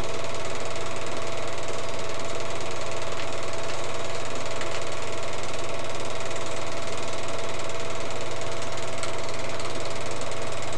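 Film projector running steadily: a constant motor whir with the fast, even clatter of the film transport.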